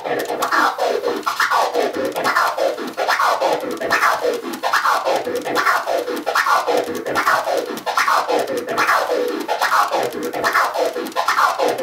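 Turntable scratching: a record sample pushed forward and pulled back about twice a second, its pitch sweeping up and down, while crossfader clicks chop each stroke into several short sounds. A continuous four-click orbit, with no pause between strokes.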